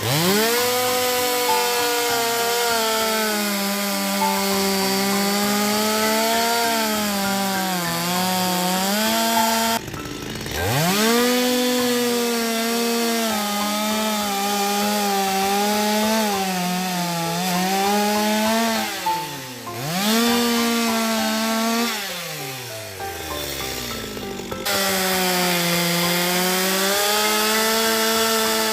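Chainsaw running at high revs while cutting through a log, its engine pitch sagging under load and recovering again and again. It winds up from nothing at the start, and a few times it drops away and revs back up.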